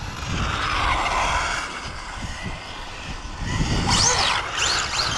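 Electric motor and drivetrain of an Arrma Infraction RC car, a 6S TP motor run on 8S, whining as the car drives on asphalt. From about four seconds in, the whine rises and falls in pitch several times in quick succession as the throttle is blipped.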